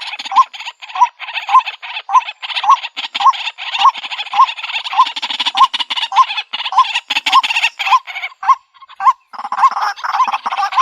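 White-breasted waterhen calling: a steady series of repeated notes, a little under two a second, over a dense noisy chorus. The note series breaks off near the end, just before the chorus changes.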